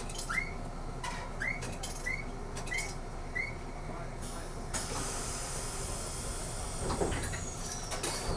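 Keifuku Randen tram running with a steady low rumble as it slows toward a station stop. There are short rising chirps about every half second in the first half, and a hiss of air starts about halfway through and fades.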